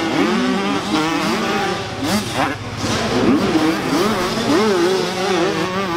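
Several Supermini-class motocross bikes racing together, their engines revving up and down over and over with overlapping, rising and falling pitches.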